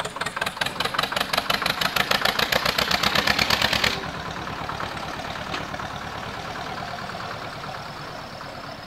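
Zetor 25A tractor's two-cylinder diesel engine running with a rapid, even chug as the tractor drives past. It is loud and close for the first four seconds, then suddenly fainter.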